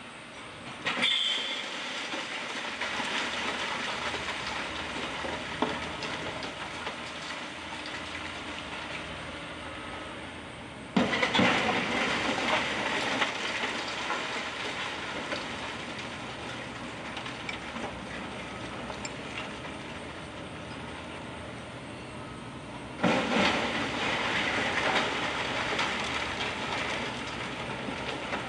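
A wrecking ball strikes a brick and concrete building three times, about ten to twelve seconds apart. Each sudden crash is followed by several seconds of clattering, rumbling rubble falling.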